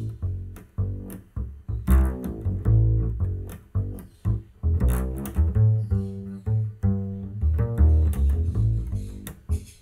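Solo double bass played pizzicato: a quick, irregular run of deep plucked notes, each with a sharp attack that dies away.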